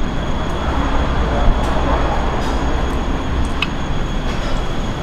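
Steady rumbling background noise with a constant thin high whine over it, and a light clink of a spoon on crockery about three and a half seconds in.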